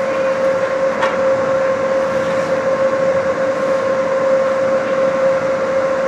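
Steady indoor ice-rink background noise: a continuous hiss with a constant mid-pitched hum running through it, and a faint knock about a second in.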